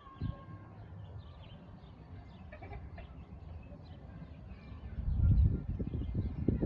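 Outdoor farmyard ambience: faint bird chirps and animal calls over a low rumble, which swells loud about five seconds in.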